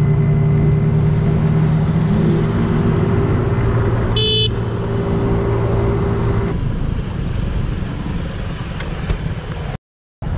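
Motorcycle engine running with road and wind noise as the bike rides along, the engine's steady note fading after about six seconds. A short horn toot about four seconds in.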